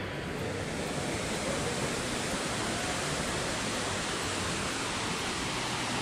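Steady rushing of Tad Yuang waterfall, an even, unbroken wash of falling water.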